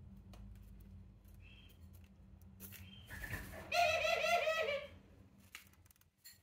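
A ringneck dove gives one loud, rolling, wavering call lasting about a second, about four seconds in. Faint short high chirps and a few soft clicks come before it.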